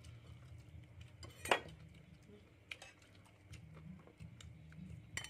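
Metal spoons clinking and scraping against ceramic plates and bowls during a meal, a few scattered clinks with the loudest about one and a half seconds in, over a low steady hum.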